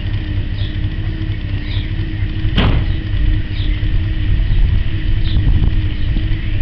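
1955 Dodge Royal Lancer's 270 ci Red Ram V8 idling with a steady low rumble. One sharp click about two and a half seconds in.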